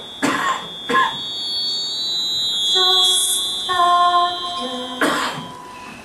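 Accordion playing softly: a high note held, then lower chords held from about three seconds in. Short noisy sounds like coughs break in twice near the start and once near the end.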